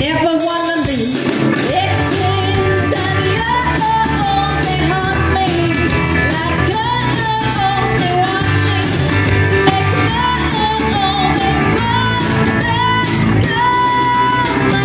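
Live rock band playing: a singer over electric bass, guitar and a drum kit, with a steady beat.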